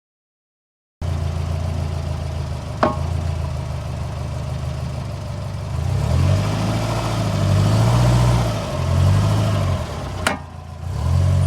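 Subaru WRX running, its engine note rising and falling, with two sharp clunks, one about three seconds in and one near the end. The clunks are the clunking noise from the car's left side.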